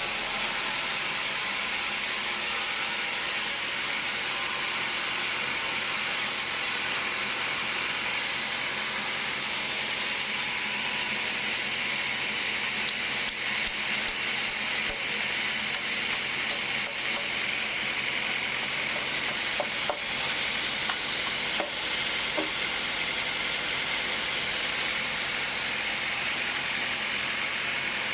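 Sawmill machinery running steadily, an even hissing rush, with a few light knocks about halfway through.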